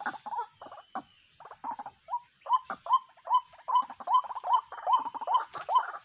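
White-breasted waterhens calling: a run of short, repeated croaking notes, broken at first, then after a brief lull an even series of about three notes a second.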